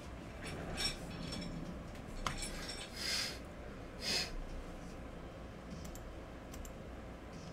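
A few sharp clicks and short swishing rustles of small objects being handled, loudest in the first half, then only faint ticks.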